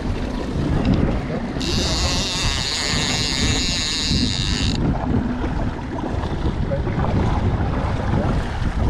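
Wind buffeting the microphone on a boat at sea, a steady rumbling rush. About a second and a half in, a high-pitched whirring hiss starts abruptly, runs for about three seconds and cuts off suddenly.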